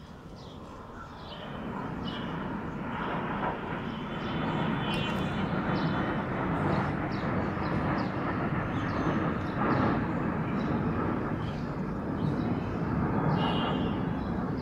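Jet engines of four fighter jets flying over in formation: a broad rushing engine noise that swells about two seconds in and stays loud, with short high chirps on top.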